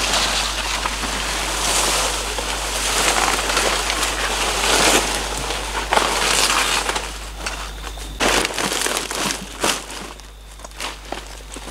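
Palm leaves and undergrowth rustling and crunching as they are handled and dragged, a dense continuous rustle that thins out near the end into separate crackles and snaps as the leaves are gathered into a bundle on the leaf litter.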